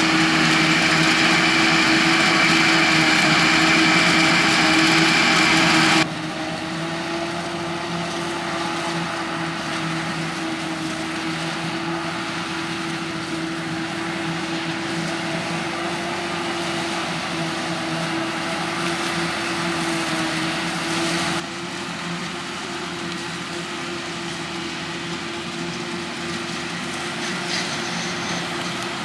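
Maize harvest machinery running steadily: a continuous engine drone with a high whine over it. The sound drops abruptly about six seconds in and again about twenty-one seconds in, where the shot changes.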